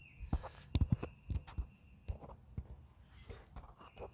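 Irregular knocks, taps and scrapes of handling noise, about a dozen in all, as the camera is set down and shifted to make it stay upright.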